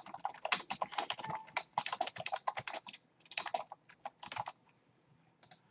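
Computer keyboard typing in quick runs of keystrokes, with a short pause about three seconds in, then stopping about a second before the end except for one last click.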